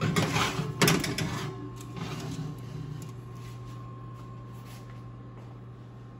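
Baking sheet of bread dough slid onto an open oven's metal rack: a few sharp metal clanks and scrapes in the first second and a half, lighter rattling that dies away by about three seconds, over a steady low hum.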